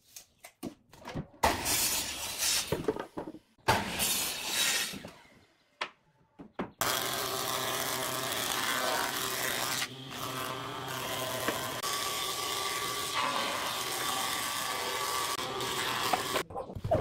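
Two short cuts from a compound miter saw, then a thickness planer running steadily for about ten seconds as it planes a pine board, a dense hiss over a low machine hum.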